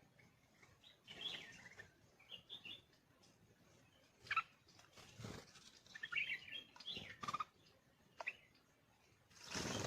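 Birds chirping in short, scattered calls, with a couple of brief dull rustling noises about five seconds in and near the end.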